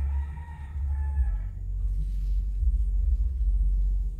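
A rooster crowing once, one call of under two seconds that sags slightly at the end, over a steady low rumble.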